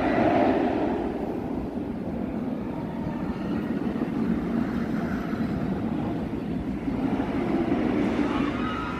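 Steel shuttle roller coaster train rumbling along its track, loudest in the first second.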